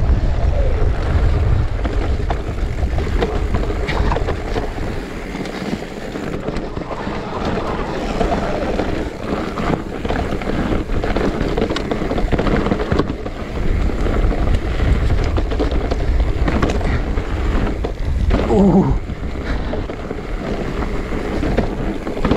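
Electric mountain bike descending a rough enduro trail: tyres rolling over dirt and stones with frequent knocks and rattles from bumps, and wind buffeting the microphone. A brief pitched whine rises and falls about eighteen seconds in.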